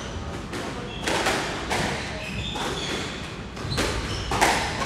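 Squash rally: a squash ball is struck by rackets and thuds off the walls and wooden floor in a series of sharp hits, with short squeaks of court shoes on the floor between them.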